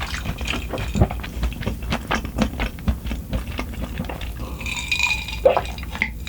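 Close-miked eating sounds: chewing with many small wet clicks and crunches, then about five seconds in a brief trickle of liquid followed by a soft knock.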